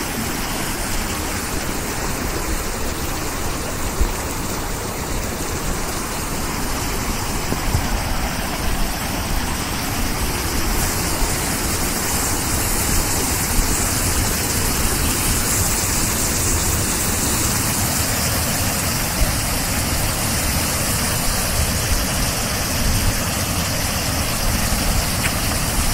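Snowmelt water rushing through a breach in an earthen dam and spilling over low ledges, a steady, even rushing noise. The dam has given way and the lake water is draining out through the cut.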